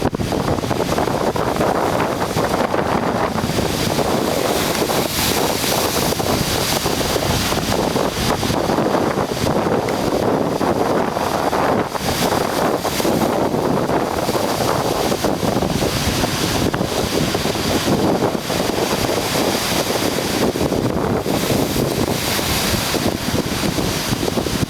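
Strong wind buffeting the microphone over the rush of heavy surf on a rocky shore, a steady loud noise without a break.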